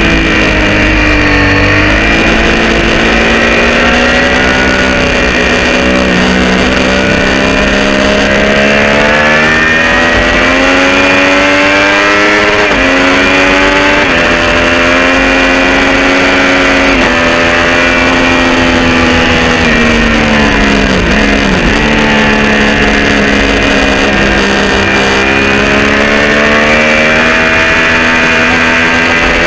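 Triumph Street Triple R 675's three-cylinder engine through an unbaffled Arrow exhaust, revving hard under acceleration: the pitch climbs, with quick quickshifter upshifts breaking it about halfway. About two-thirds of the way in the revs fall away sharply as the bike slows, then climb again as it pulls out.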